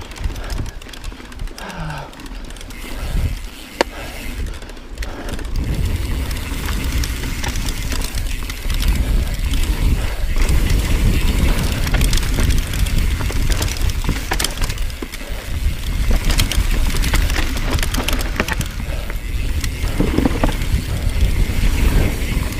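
Mountain bike descending a dirt forest trail: tyres rolling on dirt and wind rumbling on the camera microphone, with scattered clicks and rattles from the bike. It gets louder and busier from about nine seconds in.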